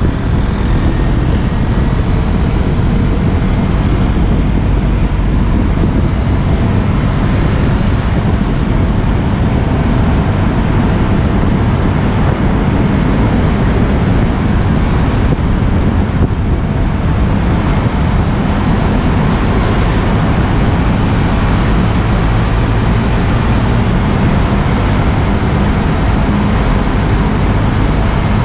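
Steady wind buffeting on an unshielded GoPro Session 5 microphone on a moving KTM Duke 125, with the bike's single-cylinder engine running underneath.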